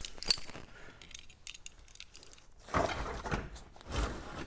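Keys jangling and clinking as they are handled, with scattered sharp metallic clicks, then louder clattering handling noise from about three seconds in.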